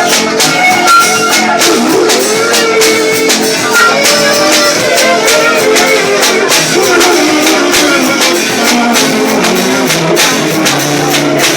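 Live band music: a voice singing over instruments, with hand percussion keeping a steady beat.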